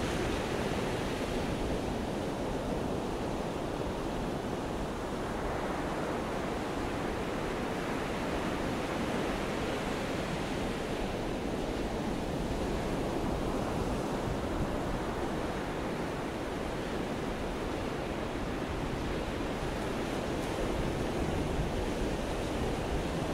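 Atlantic Ocean surf breaking and washing up the beach in a steady rush that swells and eases gently.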